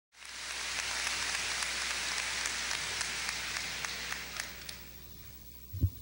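Audience applause, a steady patter of many hands clapping that dies away over the last couple of seconds, then a single low thump near the end.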